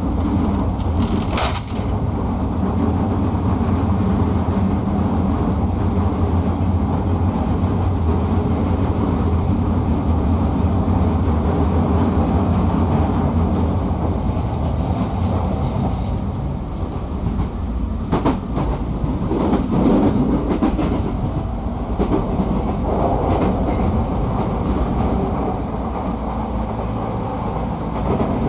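Running noise inside motor car MoHa 209-1004 of a JR East 209 series electric train under way: a steady low rumble of wheels and running gear, with a few sharp clicks about a second and a half in and again about two-thirds through.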